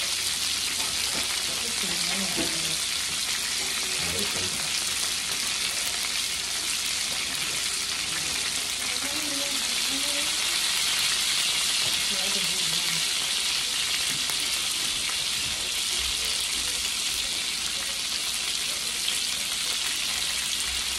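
Cheese-stuffed beef burgers frying in a skillet, sizzling steadily in their own juices with no oil or butter.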